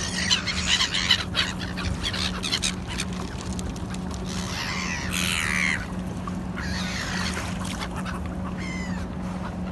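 Seagulls calling several times, with one longer call that falls in pitch about five seconds in, over a steady low hum.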